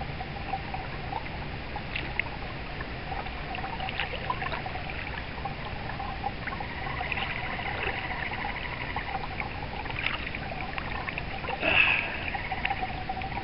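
River water flowing and rippling over a shallow riffle around a wading angler's legs, a steady rushing noise. A few brief sharper sounds stand out, the loudest near the end.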